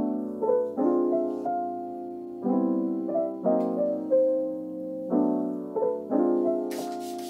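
Background music: a slow piano tune, chords struck about once a second.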